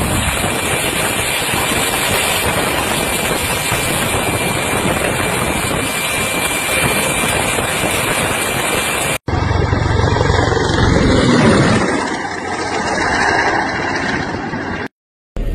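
Steady loud running noise of a military helicopter on the ground, with a faint high whine through it. About nine seconds in, a cut brings a lower vehicle engine rumble.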